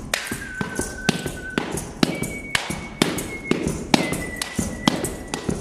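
Gumboot dancing: rubber gumboots stamping on gravelly ground and being struck, a quick, uneven run of sharp thuds and slaps, several a second. A faint high steady tone comes and goes behind them.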